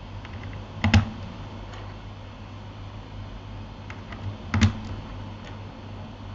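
Keys being pressed on a Keychron K8 mechanical keyboard: a few soft, sparse keystrokes, with two louder clacks about a second in and again about three and a half seconds later.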